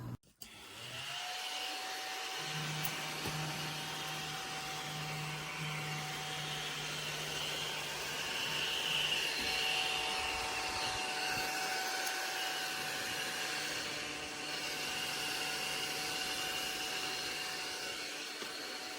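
Small handheld vacuum cleaner running steadily: an airy motor whir with a low hum. It follows a brief silence right at the start.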